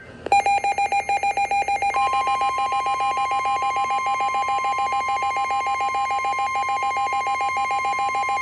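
Emergency alert attention signal: a rapidly pulsing, bell-like alarm tone. About two seconds in it is joined by a steady high tone, the pair sounding together. Near the end the pulsing stops and the steady tone carries on alone.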